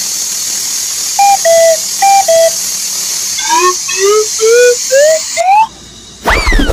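Steady high hiss with loud whistle-like tones over it: two falling two-note calls, then five short rising glides, each pitched higher than the last. The hiss cuts off near the end, and one loud whistle sweeps up and falls away.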